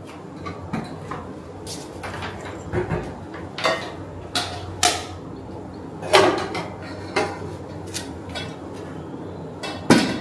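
Electric rice cooker and its metal inner pot being handled and set down on a wooden board: a string of separate knocks and light clanks, with the loudest about six seconds in and near the end.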